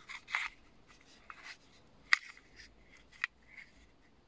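Car keys and a flip-key fob handled in the hand: a scatter of light clicks and small rattles, the sharpest about two seconds in.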